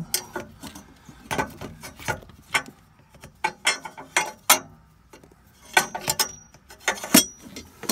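Irregular clicks and light knocks of a transmission dipstick tube being worked by hand past exhaust headers, the tube tapping against the pipes and engine parts.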